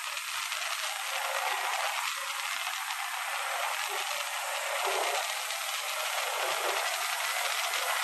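Steady hissing rush of wind and road noise from a vehicle travelling along a paved road. It sounds thin, with no low engine rumble.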